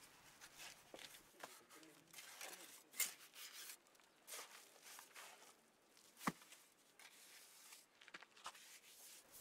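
Faint scraping and rubbing of a trowel spreading wet mud mortar over the bricks of a brick cooking stove, with a few sharper knocks, the clearest about three and six seconds in.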